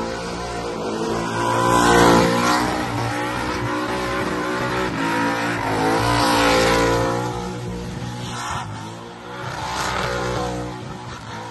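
Supercharged car engine held at high revs in a burnout, its revs wavering up and down while the rear tyres spin and smoke on the pad. It gets louder about two seconds in and again around six to seven seconds, then dips.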